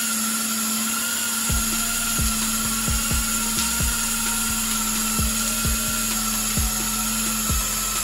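Razor MX650's 72-volt Kunray 2000 W brushless motor whining at a steady high speed while the rear tyre spins against the concrete in a smoking burnout, with a hiss of tyre scrub and irregular low thumps.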